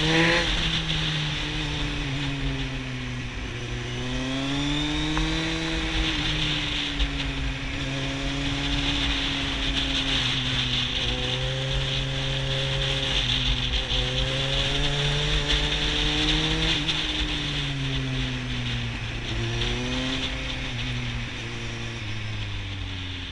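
Kawasaki Z750's inline-four engine pulling through bends under way, its revs rising and falling several times with the throttle, over steady wind noise.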